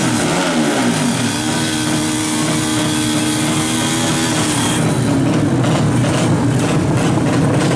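Drag racing motorcycle engine revved at the start line. The revs swing up and down, are then held steady and high for about three seconds, and drop off about five seconds in before running on unevenly.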